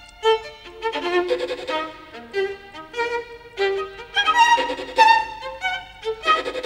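Violin music: a quick melody of short, separate notes.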